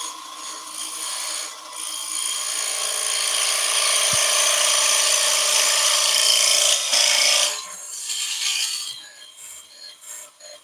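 Parting tool cutting into spinning wood on a lathe, trimming a recess on the end face: a hissing scrape that builds about a second in and runs steadily, then eases off to lighter, broken cuts after about seven seconds.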